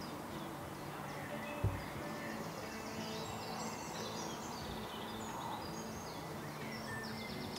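Outdoor ambience with small songbirds chirping and trilling, busier from about three seconds in, over a steady low background hum. A single dull thump about 1.7 seconds in.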